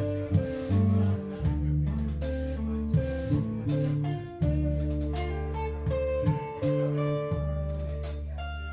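A band playing an instrumental passage: guitar over held bass notes and drums, with repeated cymbal strokes.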